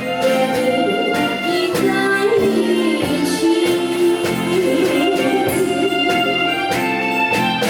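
Music: a woman singing a melody over instrumental accompaniment.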